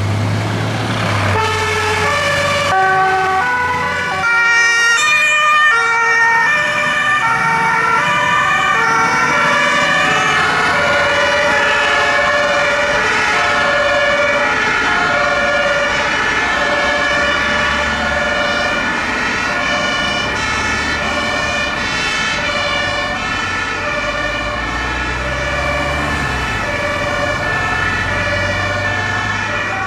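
Several emergency-vehicle two-tone sirens sounding together, out of step with one another, over the low running of vehicle engines. The sirens start about a second and a half in.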